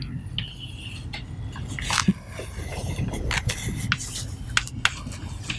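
Chalk tapping and scraping on a blackboard in short strokes as a graph is drawn, over a steady low room hum.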